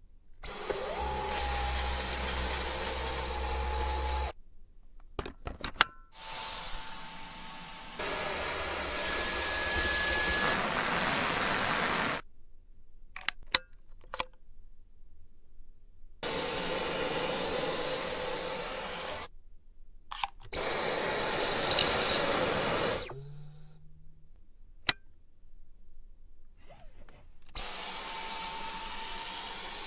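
Dyson vacuum cleaner running in about five separate stretches of a few seconds each, a steady airflow rush with a thin high whine, cut off sharply between them, with a few clicks in the gaps.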